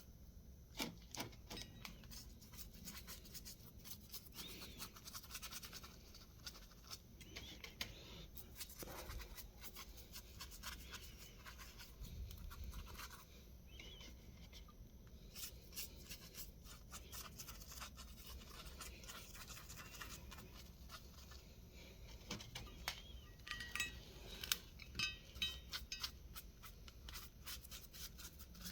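A brush scrubbing and scratching over a metal spindle in short irregular strokes, with scattered light clicks and a few louder taps near the end.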